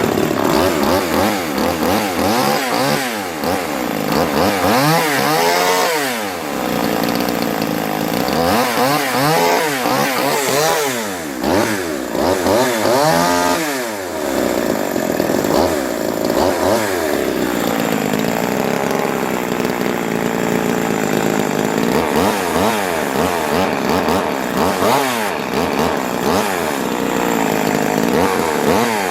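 Remington Mighty Mite 500's 38cc two-stroke chainsaw engine running just after starting, revved up and down in repeated blips with steadier idling between. It ticks over with a slight hesitation, a little unhappier than normal.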